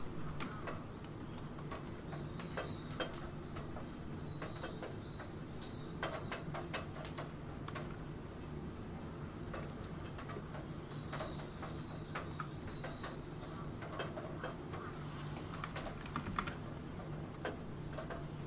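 Typing on a computer keyboard: irregular runs of key clicks, some louder strokes among them, over steady rain.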